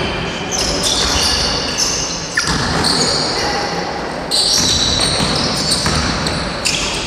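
Basketball game on a gym floor: the ball bouncing and sneakers squeaking in many short, high-pitched streaks.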